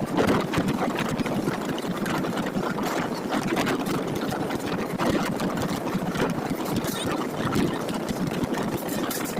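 Steady running noise of a moving vehicle, with continual small rattles and clicks.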